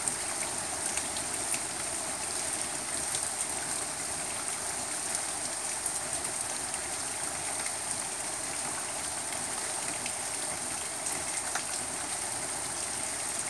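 Steady rain falling on trees, grass and a wet paved patio, with single close drops ticking now and then.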